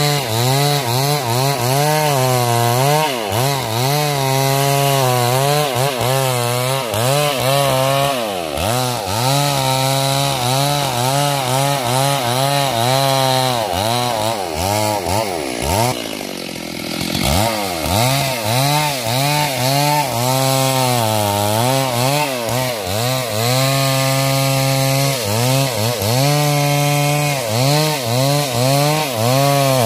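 Stihl MS 382 two-stroke chainsaw cutting wood at high revs, its engine pitch wavering as the chain loads up in the cut. About halfway through, the revs drop away briefly, then climb back to full throttle.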